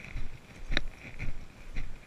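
Footsteps of a person walking on a leaf- and pine-needle-covered trail, picked up through a chest-mounted GoPro: muffled thuds about twice a second, with one sharper crunch a little before the middle.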